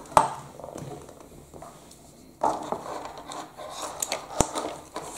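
Hard plastic parts of a disassembled toy telehandler and hand tools being handled and knocked on a tabletop. A sharp click comes just after the start, light clattering follows, and busier handling begins about two and a half seconds in, with another sharp click near the end.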